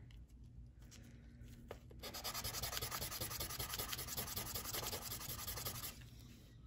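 Cast resin die rubbed back and forth on wet 600-grit sandpaper, a rapid scratchy rasping that starts about two seconds in and stops shortly before the end, as the rough sprue corner is ground down flush.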